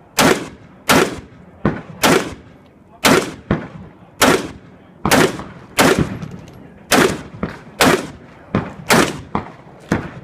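A pistol fired in a steady string of about a dozen shots, roughly one a second, with some quieter cracks in between.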